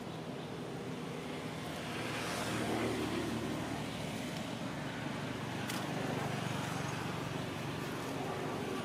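A motor vehicle's engine running in the background, swelling louder about two seconds in, with a faint click a little before six seconds in.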